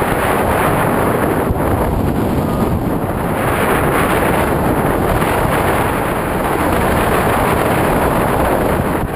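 Airflow buffeting the microphone in paragliding flight: a steady, loud wind rush.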